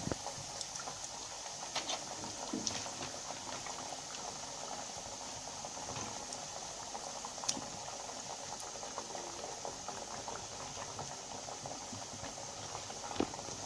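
Thattai, flat rice-flour discs, deep-frying in hot oil: a steady sizzling hiss with scattered crackles and a few sharper pops.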